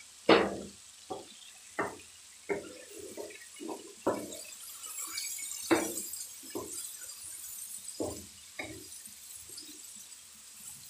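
A spatula knocking and scraping in a kadhai as chopped tinda (round gourd) pieces are stirred into the masala, in irregular knocks. The loudest knock comes about a third of a second in.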